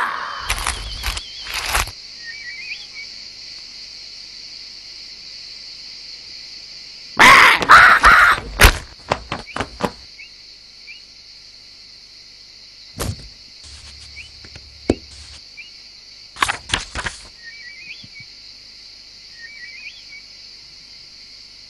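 Cartoon savanna soundscape: a steady high hiss of ambience with small bird chirps now and then. A cluster of loud sudden knocks comes about seven seconds in, with single knocks later.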